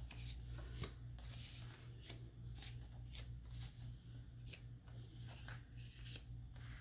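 Faint rustling and light taps of handmade paper cards being handled and laid down on a cloth, over a low steady hum.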